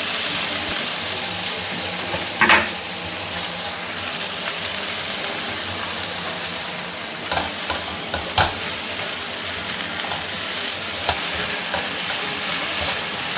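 Green vegetable stalks sizzling steadily as they stir-fry in hot oil with garlic and dried anchovies in a nonstick frying pan. A few short knocks of the stirring stand out, the loudest about two and a half seconds in and again around eight seconds.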